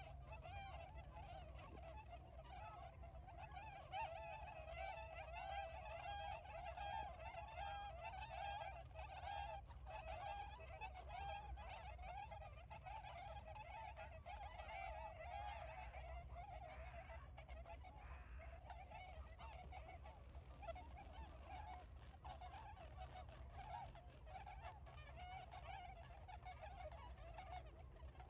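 A flock of Bewick's swans calling: a continuous chorus of overlapping honking calls from many birds at once.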